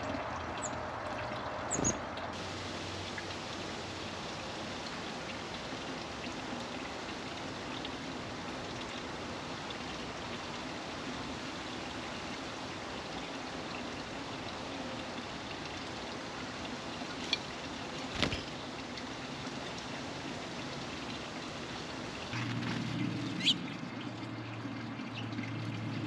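Steady outdoor background hiss with a few faint bird chirps and occasional taps. A low motor hum comes in near the end.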